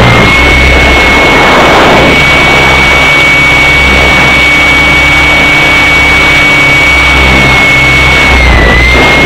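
Align T-Rex 600 RC helicopter in flight, heard from on board: a steady high drivetrain whine over loud wind noise and low rotor rumble. The whine briefly dips in pitch once near the end.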